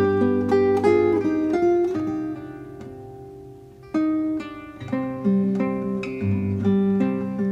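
Instrumental background music of plucked, picked notes. It dies away in the middle and picks up again with a new phrase about four seconds in.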